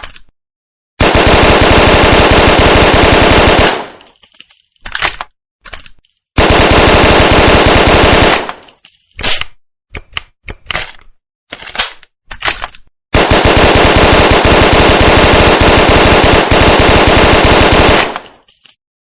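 Thompson submachine gun in .45 ACP firing three long bursts of full-automatic fire, each several seconds long. Between the bursts come short metallic clicks and clacks of the gun being reloaded.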